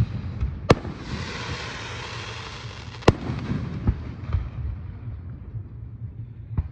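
Aerial firework shells bursting overhead: three sharp booms a few seconds apart, with a hissing noise for a couple of seconds after the first.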